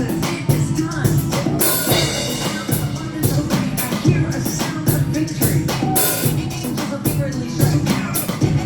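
Upbeat church worship music with a steady drum beat, a strong bass line and singing.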